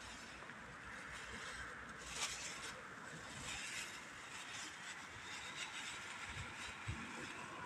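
Quiet outdoor background noise, a steady low hum with a few brief, soft rustles.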